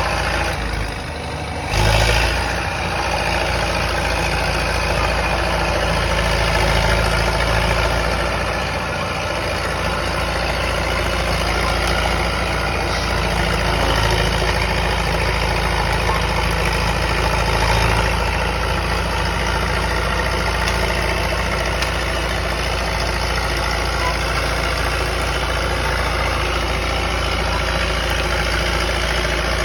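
Caterpillar D4E crawler dozer's diesel engine running steadily under load. The sound dips briefly about a second in, then surges loudly at about two seconds.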